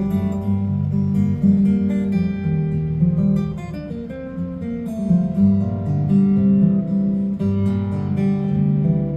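Acoustic guitar music with plucked and strummed notes, played back through Sonus Faber Lumina II bookshelf speakers driven by a Hegel H120 amplifier.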